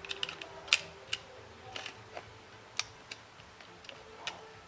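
Small metal tools clicking and tapping on the opened tablet's internal parts: a scatter of light, irregular ticks, the sharpest about three-quarters of a second in.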